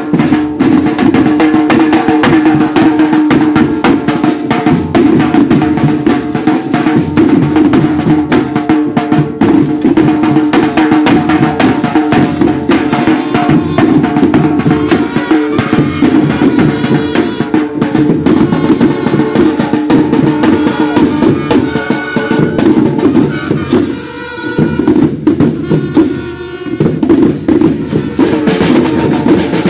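Marching-band drumline playing snare drums with sticks in a fast, steady parade cadence. There are two brief drops in loudness near the end.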